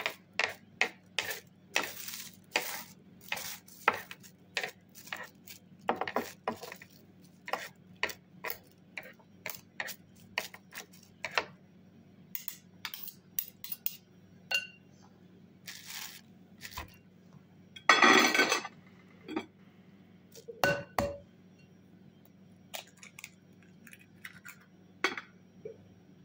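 Metal spoon clinking and tapping against a glass mixing bowl, many short irregular taps, with a longer scraping rustle about eighteen seconds in. A steady low hum runs underneath.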